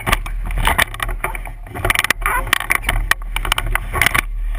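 Wind buffeting the microphone and water rushing past the hull of a sailboat under way, with a steady low rumble and frequent irregular knocks and clatter.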